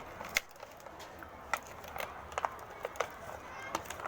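Scattered light clicks and crackles of packaging being handled as an action camera is unboxed.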